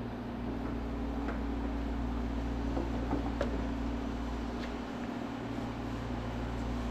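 Steady low machine hum, with a few faint, scattered clicks from spark plug wires being handled.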